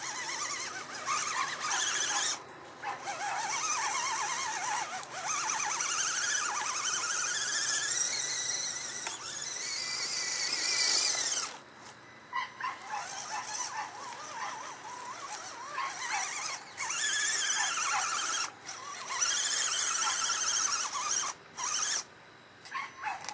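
Electric motor and drivetrain of an Axial SCX10 RC crawler whining as the throttle is worked. The pitch wavers up and down, stops briefly a few times, and climbs in one long sweep before cutting off about midway.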